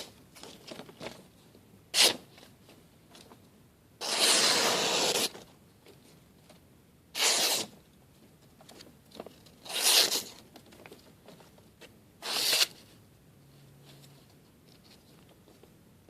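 Kershaw Thermite's 8Cr13MoV blade slicing through paper: five short rasping cuts and one longer cut about four seconds in.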